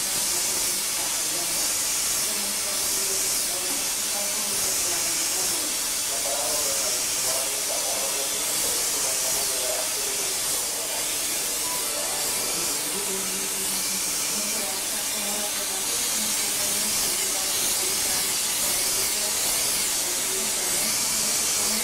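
Steady hiss of gas burner flames on a vacuum-tube pumping machine, playing on the glass tube envelopes.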